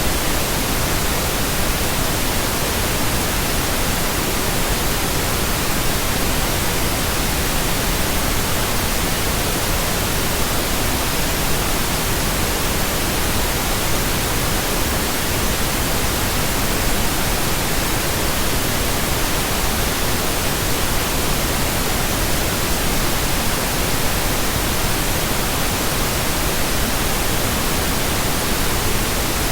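Steady synthetic pink noise: an even, unbroken hiss that does not change in level.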